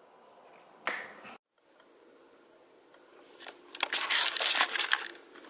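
Rustling and crinkling handling noise with scattered clicks, starting about three seconds in and lasting about two seconds, after a brief soft rustle about a second in.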